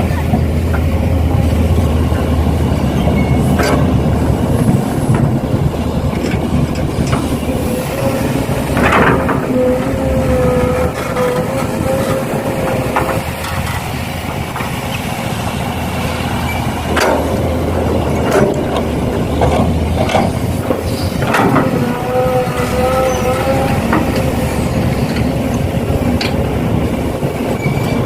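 Radio-controlled model construction machines working: electric motors and gearboxes running with a wavering whine that rises and falls several times, over a low hum and scattered knocks and clicks.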